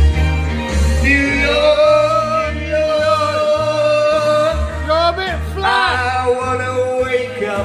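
Live male singer with a microphone over a backing track with a steady bass beat; he holds one long note for about three seconds, then sings short sliding phrases.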